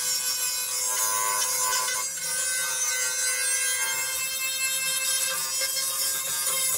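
Handheld rotary tool with a small bit grinding rust out of a steel channel: a steady whine with scratchy grinding noise that holds an even level throughout.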